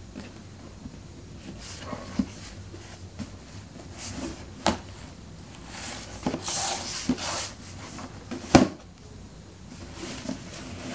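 Cardboard shoebox being handled and opened by hand on a wooden floor: scattered sharp knocks and taps, with the loudest late on, and scraping and rubbing of the box and lid in between.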